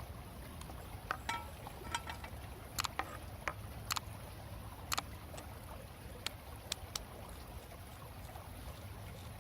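About a dozen irregular sharp clicks and knocks, a few with a short ringing tone, over a steady low background noise.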